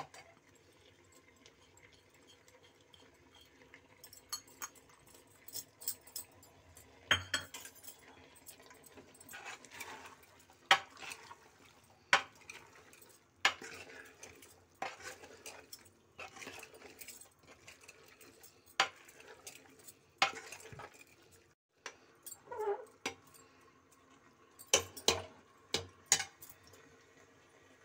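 Metal ladle stirring chickpeas in an open pressure cooker, knocking and scraping against the pot in irregular sharp clicks about once a second or so.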